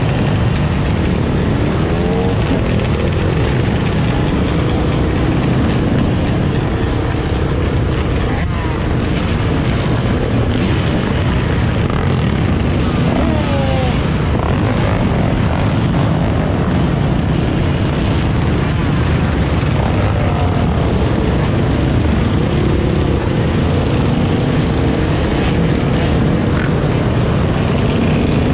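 A pack of dirt bike engines running together in a steady, loud rumble, with single bikes revving up and down now and then.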